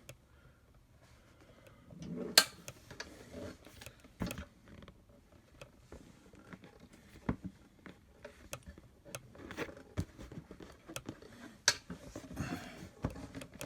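Scattered light clicks and knocks of metal kart-frame parts and bolts being handled while bolt holes are lined up.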